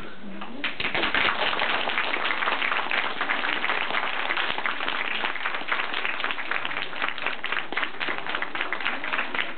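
Audience applauding, a dense patter of many hands clapping that starts under a second in and keeps going.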